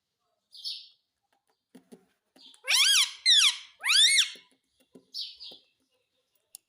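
Pet Indian ringneck parrot calling: a short raspy chirp, then three loud, high-pitched calls in quick succession, each sliding up and then down in pitch, followed by another raspy chirp. Small clicks in between.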